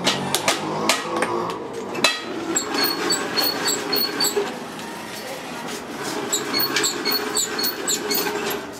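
Hand-cranked bead roller turning a stainless-steel cylinder between its rollers: a steady grinding rattle of the gears and rolling metal, with scattered clicks. Twice, a run of short high chirps comes in.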